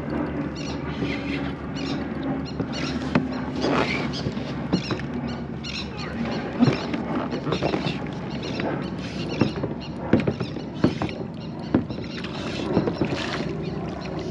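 Irregular knocks and clicks of handling on a fishing kayak, over a steady wash of water and wind hiss.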